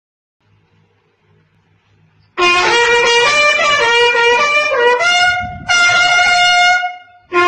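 About two and a half seconds in, a trumpet starts blowing a loud wake-up call: a quick run of notes, a short break, then a long held note. A brief last blast comes near the end.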